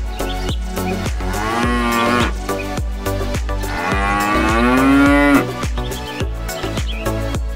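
Two long cow moos, the second louder and longer, over electronic background music with a steady beat.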